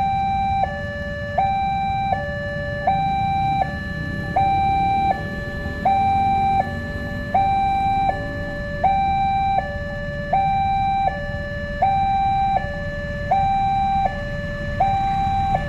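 Railway level-crossing warning alarm sounding steadily, an electronic two-tone signal that alternates between a higher and a lower note about every three-quarters of a second. It signals that the crossing is closed for an approaching train.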